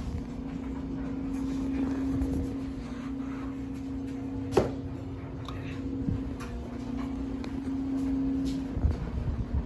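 Weiye mini ceiling fan running with a steady motor hum, with one sharp click about four and a half seconds in.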